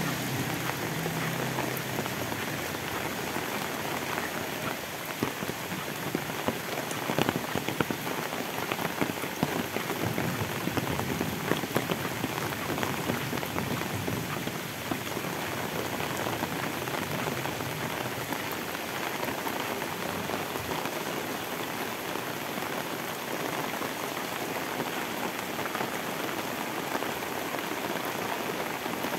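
Heavy rain pouring steadily on a road and foliage, a dense hiss full of small drop splats. A motorbike's engine fades away in the first second.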